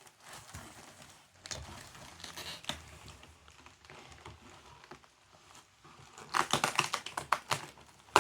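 Crinkling and crackling of foam bubble-wrap packaging being pulled at and worked loose from a cardboard box, with scattered clicks that turn into a louder, quicker run of crackles about six seconds in.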